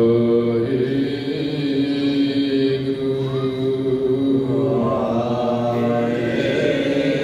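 Sikh kirtan: a man chanting a devotional hymn over long held harmonium notes, the melody stepping from one pitch to another.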